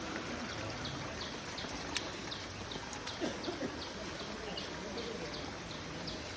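A bird calling a rapid series of short, high, falling notes, about three a second, over a steady background hiss, with a sharp click about two seconds in.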